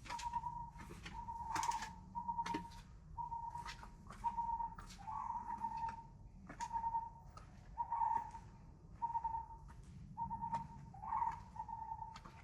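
Repeated short whistled bird call on one pitch, about three notes every two seconds, with scattered sharp clicks over it.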